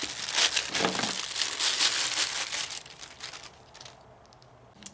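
Clear plastic wrapping crinkling and rustling as it is pulled off a small device by hand; the crinkling dies away about three seconds in.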